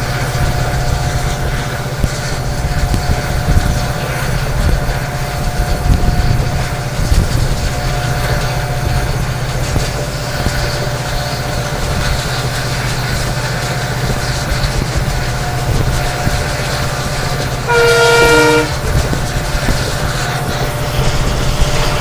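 Train running along the line, heard on board: the hauling WDP4 diesel locomotive's EMD two-stroke engine hums steadily over the clatter of wheels on the rails. About 18 seconds in, the locomotive's horn sounds once, briefly, sagging in pitch as it cuts off.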